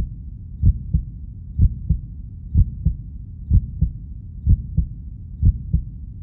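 Heartbeat sound effect: low, paired lub-dub thumps repeating steadily about once a second.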